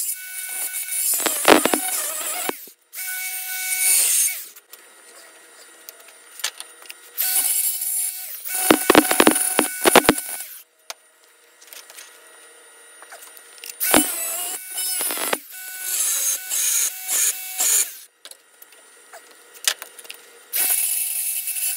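Angle grinder grinding welded steel blocks clamped in a vise: about six stretches of rough grinding, each a second or a few long, with the motor's steady whine through them and short quiet gaps between.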